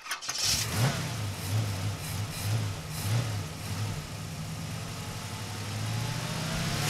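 Car engine sound effect from an animated intro: a low engine rumble that pulses about once a second, with a rising whine building near the end.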